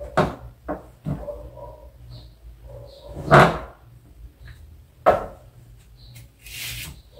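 A taken-down fabric curtain being handled and gathered up: a few sharp knocks and rustles, the loudest about three and a half seconds in. A steady low hum runs underneath.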